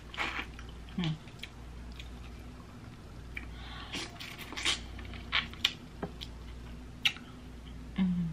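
Close-up wet eating sounds of a person eating boiled shrimp by hand: lip smacks, sucking and chewing in scattered clicks, with a short low hum near the end.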